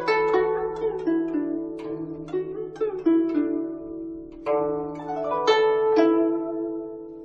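Background music of plucked strings: single notes struck in a slow melody, each ringing and fading, over a low held note.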